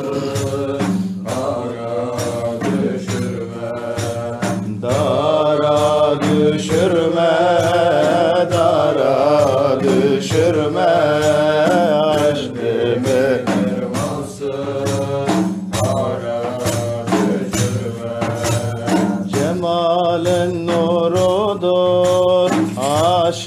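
Men singing a Turkish Sufi ilahi without instruments. A solo voice sings long, wavering melismatic phrases over a low, held drone, with a steady beat of sharp strikes.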